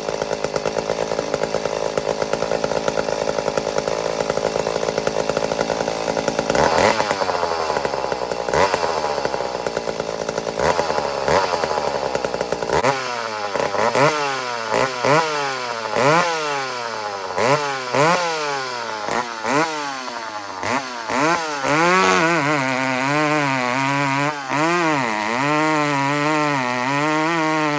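McCulloch SP81 two-stroke chainsaw running hard at high revs. About halfway through, the throttle is blipped up and down several times. Near the end the saw cuts into a large log, its pitch dipping and recovering under load.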